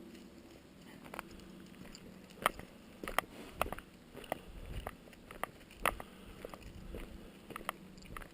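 A series of short crunching clicks, roughly two a second and not quite evenly spaced, over a faint low rumble.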